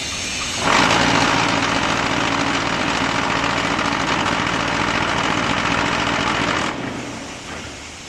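Concrete block machine vibrating, a loud, fast rattling buzz that starts suddenly under a second in and cuts off about six seconds later, leaving a quieter hum. This is the vibration cycle that compacts the concrete in the block mould.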